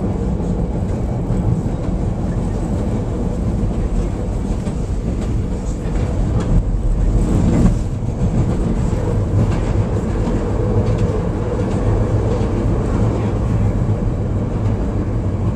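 Chicago 'L' Brown Line train running on elevated track, heard from inside the car: a steady rumble of wheels and motors. About halfway through it grows louder and clatters for a couple of seconds as the train passes over a set of switches.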